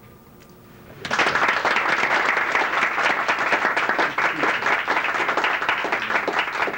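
Audience applauding: the clapping breaks out about a second in and keeps up steadily.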